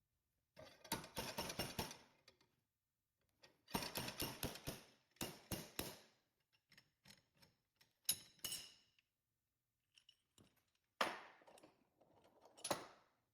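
Metal-on-metal clattering and tapping as a steel bearing race is worked out of the winch housing: bursts of rapid clicks about a second long, then single sharp ringing strikes about eight seconds in and near the end.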